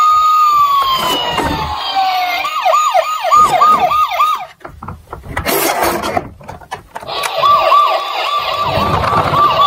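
Toy emergency vehicle's electronic siren: a wail that falls away, then a fast yelp of about three sweeps a second. After a pause with a few clicks, a second fast yelping siren starts.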